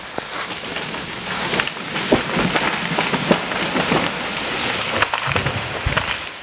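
A felled yellow-poplar tree crashing down through the surrounding canopy. Branches and twigs crackle and snap and leaves rustle in a dense hiss, with heavy thuds near the end as the trunk and crown hit the ground.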